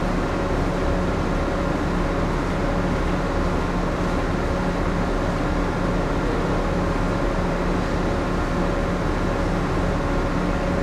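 Steady hum of a moored ship's onboard machinery and air handling heard inside the passenger spaces: a constant drone with a few fixed tones over even noise, unchanging throughout.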